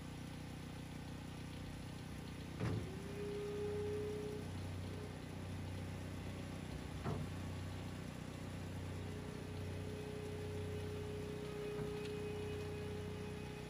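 Skid steer loader's engine running as the machine moves and raises its loaded bucket, with a steady hydraulic whine that comes in twice and two sharp clanks, the first about two and a half seconds in and the second about seven seconds in.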